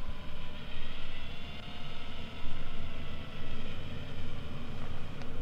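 Quadcopter drone propellers whining: several steady tones drift slowly in pitch together, over a low fluttering rumble of wind on the microphone.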